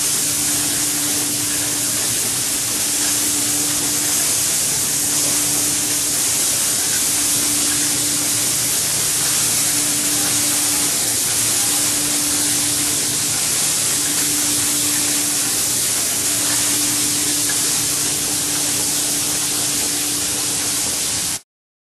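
Pneumatic spray guns of an automatic shoe-outsole spraying machine hissing steadily as they spray, over a low machine hum and a tone that breaks off briefly about every second and a half. The sound stops abruptly near the end.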